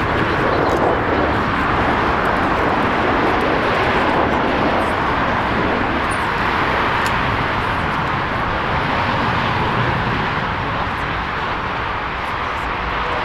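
Boeing 737-800 airliner's CFM56 jet engines heard as a steady rushing noise while it lands and rolls out on the runway, easing off a little near the end.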